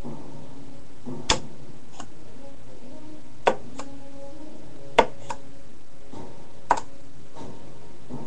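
Four sharp clicks about every one and a half to two seconds, each followed shortly by a fainter click, over a steady hiss.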